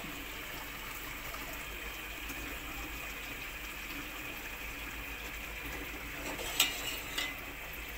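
Steady hiss of a pot of sweetened milk heating on a gas stove, not yet at the boil. Near the end, two short clinks of a metal ladle against the steel pot.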